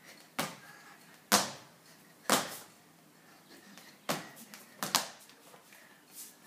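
A skipping rope slapping a tiled floor as a child jumps rope: sharp slaps about once a second, then two close together, and a last faint one near the end.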